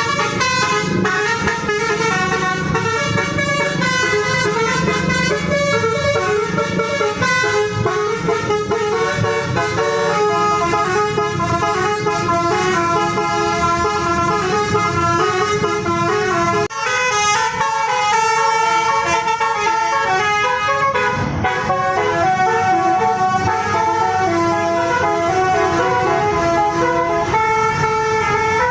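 Telolet basuri bus horn, a set of multi-tone air horns, playing fast melodies note by note over a low engine rumble, with a brief break about seventeen seconds in.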